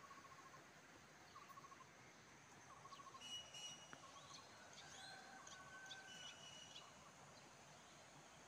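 Faint birdsong over quiet outdoor background: short trilled notes repeating about once a second, with higher thin whistled notes and a few ticks in the middle.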